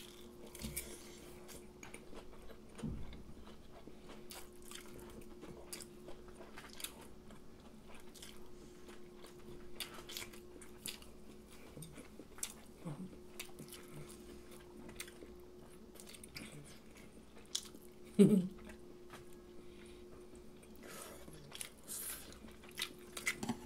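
Close-up mouth sounds of people eating crispy fried food: chewing with scattered crunches and small clicks over a faint steady hum. One short, louder low sound about 18 seconds in.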